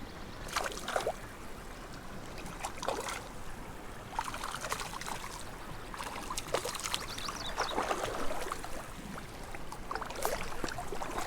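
Water splashing and trickling in a small spring creek, in irregular bursts.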